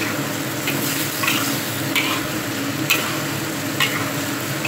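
Metal spatula stirring and scraping chicken and bell peppers around a black wok, a stroke about once a second, over the steady sizzle of the frying.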